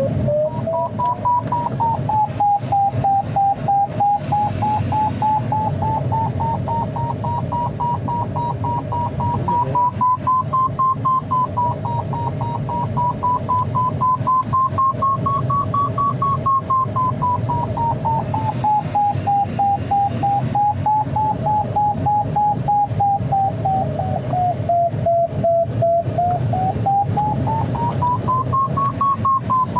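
Glider audio variometer beeping rapidly, its pitch wavering slowly up and down with the rate of climb: the sign of the glider climbing in lift. Under it is the steady rush of airflow around the ASK 21's cockpit.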